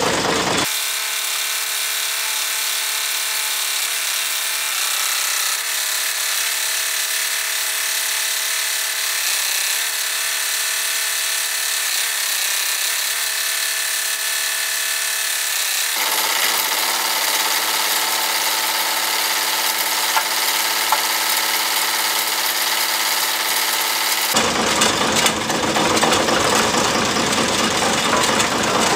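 Farm tractor engine running, heard sped up: a steady, high, thin whir with no low rumble. Its character changes about halfway through, and ordinary full sound returns near the end.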